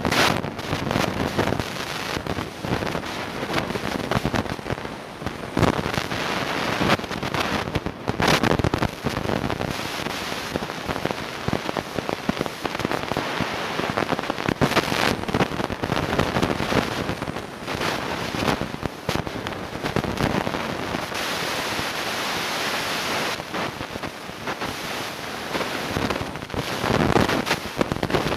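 Heavy rain and gusting wind beating on the microphone, a loud dense hiss broken by irregular crackling hits.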